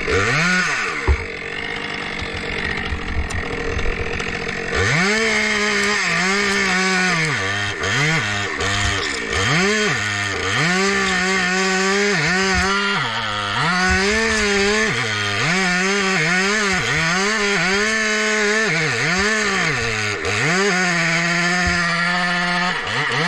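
Two-stroke chainsaw running loudly. After a brief rev at the start it runs lower and rougher, then from about five seconds in it is throttled up and down over and over, its pitch rising and dropping about once a second.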